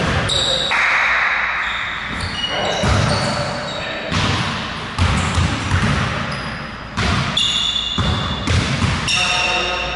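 Basketballs bouncing on a hardwood gym floor in repeated thuds, with short high sneaker squeaks.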